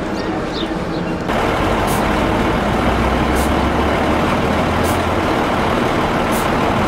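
Tour coach's diesel engine idling with a steady low rumble, and a short high hiss repeating about every second and a half. It starts abruptly about a second in, after a quieter stretch with a few faint chirps.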